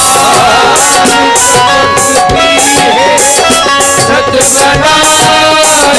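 Live ghazal accompaniment: a melodic instrumental passage over a steady percussion beat, between the sung lines.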